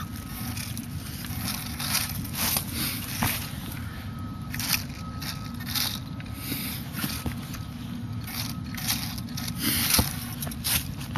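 Xmod micro RC truck's tyres crunching and scraping over dry pine needles, leaves and roots in frequent short crackling bursts, with a faint thin whine that comes and goes, over a steady low rumble.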